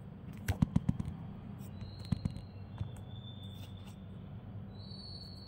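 A few light clicks and taps: a quick cluster about half a second to a second in, then two more about two seconds in, over a low steady hum.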